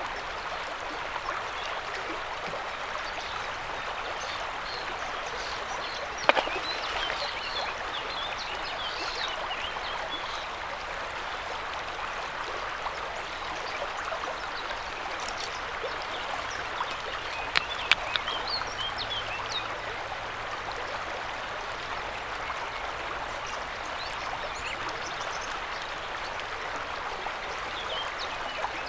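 River water rushing and murmuring steadily, with a few short high chirps over it and a couple of sharp clicks about six seconds in and around eighteen seconds.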